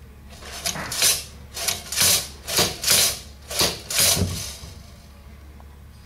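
Head of a Columbia automatic drywall taper worked by hand: about eight short rubbing, scraping strokes of its metal creaser arms and wheel in quick succession, then only a low steady hum.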